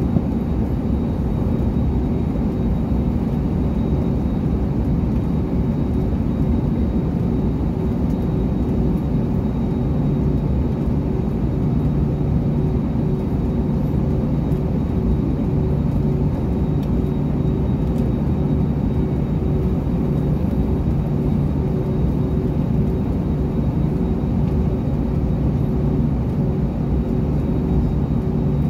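Cabin noise of an Airbus A321neo taxiing, its Pratt & Whitney geared turbofan engines running at low taxi power: a steady hum and rumble with a faint constant tone. A deeper hum comes in about ten seconds in.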